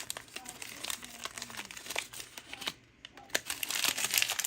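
Small plastic wrapper crinkling and tearing as a mini toy item is unwrapped by hand, in irregular crackles that grow busier near the end.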